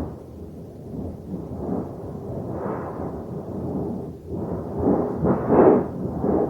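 Rolling thunder rumbling in repeated swells, building to its loudest peals about five to six seconds in.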